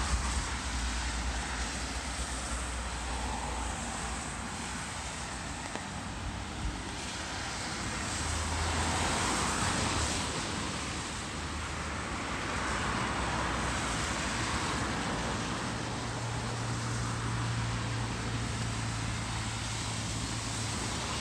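Steady hiss of falling rain, with two slow swells of louder noise lasting a couple of seconds each, and a low steady hum joining about fifteen seconds in.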